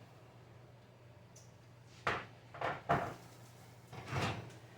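Kitchen handling noises as a muffin pan is taken out of the oven: about two seconds of quiet, then four clunks and knocks of metal pan, oven rack and door.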